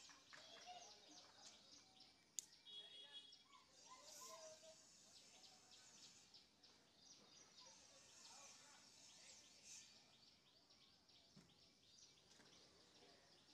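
Near silence: faint background with scattered high bird chirps and faint distant voices, and one small click about two and a half seconds in.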